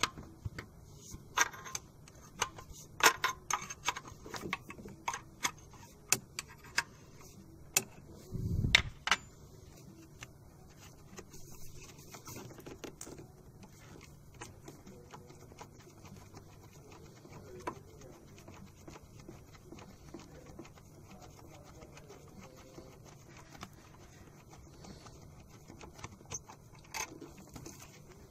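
Irregular metallic clicks and clinks of a 10 mm wrench working the EGR valve's mounting bolts, thickest in the first ten seconds, with a dull thump at about eight and a half seconds. Fainter clicks and handling sounds follow.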